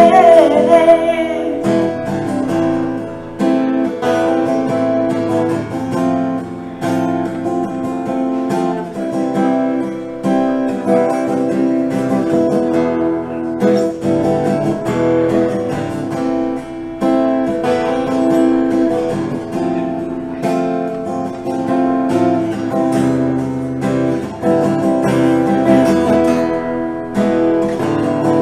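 Acoustic guitar strummed in a steady rhythm through an instrumental break, with a woman's sung note trailing off about a second in.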